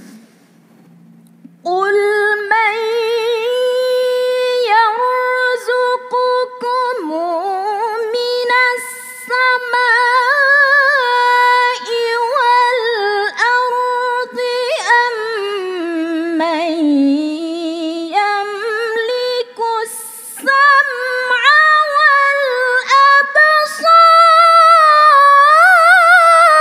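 A woman's voice in melodic Quran recitation (tilawah), starting about two seconds in with long drawn-out notes, wavering ornaments and wide slides up and down in pitch. It gets louder and higher near the end.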